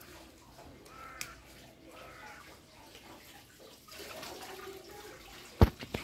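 Low, steady background noise with a few faint short chirps, then two sharp, loud knocks near the end.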